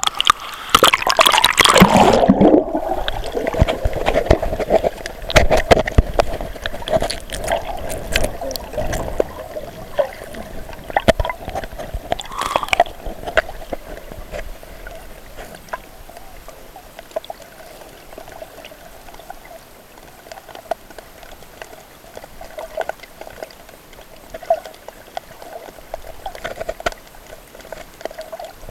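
Water heard by a camera going underwater: loud sloshing and bubbling in the first few seconds, then quieter gurgling with scattered clicks over a steady hum.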